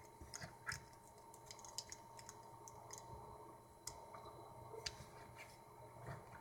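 Faint, scattered clicks of a plastic action figure and its parts being handled.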